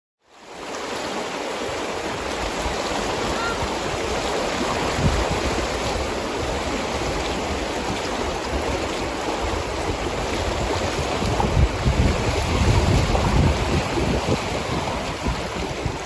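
Steady rush of flowing river water, fading in just after the start, with wind buffeting the microphone in low gusts in the second half.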